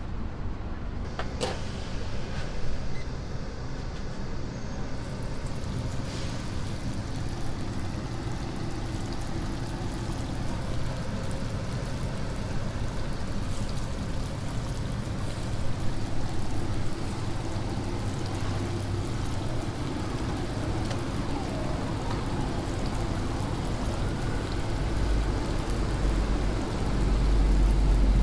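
Hot oil in a deep fryer sizzling and bubbling as twisted kkwabaegi doughnuts fry, over a steady low rumble. A heavier low rumble comes in near the end.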